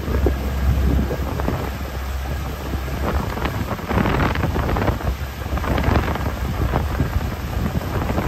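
Wind buffeting the microphone in irregular gusts over the low drone of a bass boat's outboard motor running at speed.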